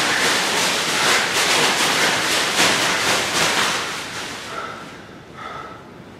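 Thin clear plastic bag crinkling and rustling loudly as a person moves inside and against it, fading away after about four seconds.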